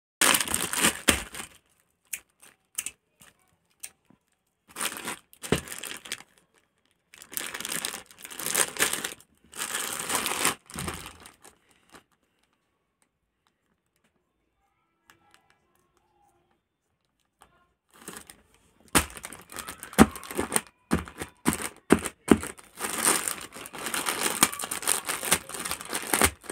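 Plastic courier mailer crinkling and rustling in the hands in several bursts as it is handled and opened. A quiet stretch falls in the middle, then denser crinkling with sharp snaps of plastic over the last several seconds.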